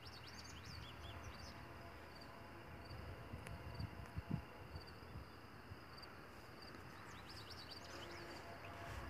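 Quiet outdoor ambience of birds chirping in quick falling calls, in a cluster near the start and again near the end. Under them run a faint high chirp repeating under a second apart and a low rumble, with a few soft low bumps about four seconds in.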